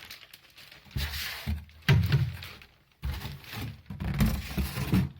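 A bicycle helmet being lifted out of a cardboard shipping box: several dull thunks and knocks of the helmet and box being handled, with scratchy rustling between them.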